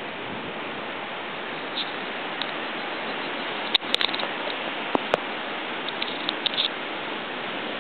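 Steady wash of ocean surf on a rocky shore, an even hiss with no rise or fall, broken by a few sharp clicks about four and five seconds in and some smaller ticks a little later.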